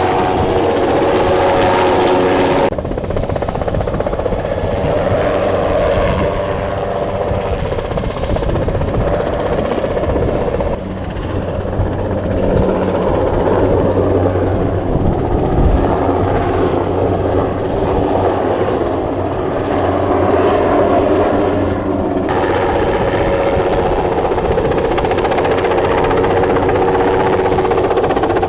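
Large helicopter running close by: a steady rapid beat of the rotor blades over a constant engine whine. The sound changes abruptly in tone and level about 3, 11 and 22 seconds in.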